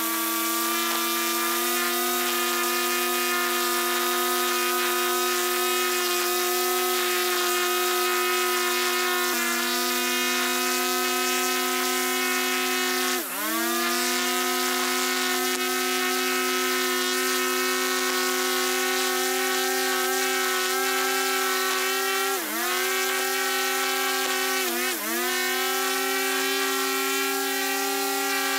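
String trimmer running at full speed with a steady high whine; three times its pitch dips briefly and recovers as the line takes load in the grass.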